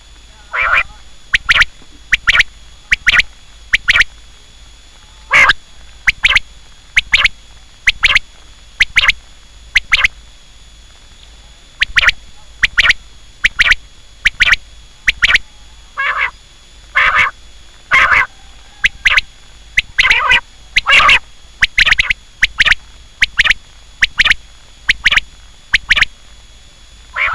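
Quail calling over and over in short, sharp notes, about one or two a second with small irregular gaps.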